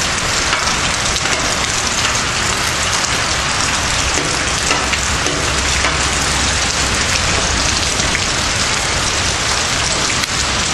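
Torrential rain pouring down, a dense, steady hiss of drops hitting pavement and grass.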